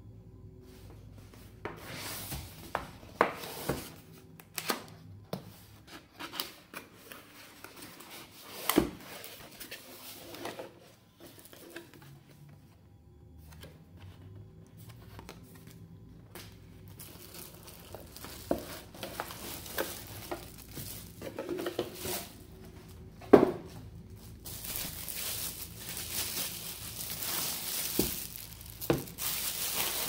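A cardboard box being handled and opened, with scattered taps and knocks and one sharp knock. In the last five seconds or so, clear plastic wrap crinkles steadily as it is peeled off a padded carrying case.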